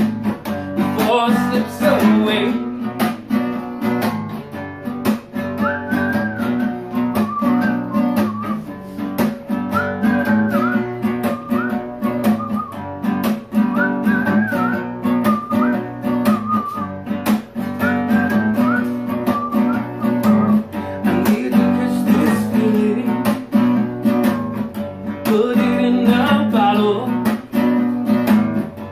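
Acoustic guitar strummed steadily in an instrumental passage of a song, with a higher wavering melody line over the middle part.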